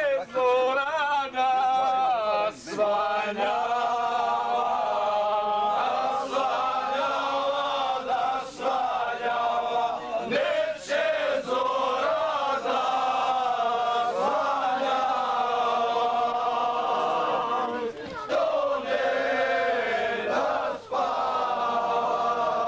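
A group of men singing together in chorus, holding long notes.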